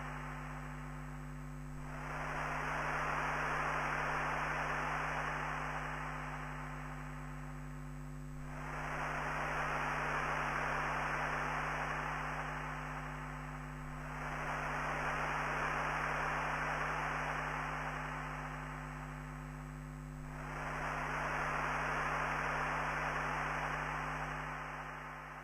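Electronic drone noise music from hardware synthesizers: steady low droning tones under a band of filtered white noise that swells up and fades back about every six seconds, four times.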